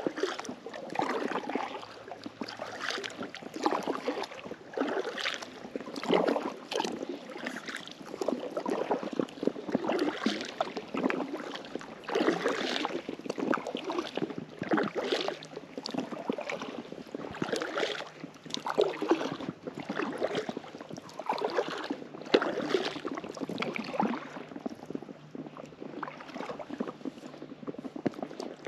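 Kayak paddle strokes in lake water: a swish and splash of the blade about once a second, in a steady rhythm, easing off in the last few seconds.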